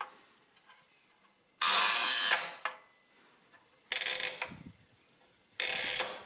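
Metal stylus turning the toothed dials of a 1924 Quixsum Fractional Adding Machine back to zero, one dial at a time. It gives three short scraping, ratcheting turns, each under a second long, about two seconds apart.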